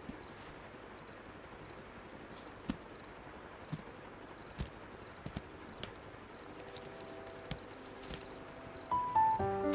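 Crickets chirping steadily, about two chirps a second, over a low hiss, with a few short knocks and clicks as a wooden box is handled and opened. Held background music notes come in near the end.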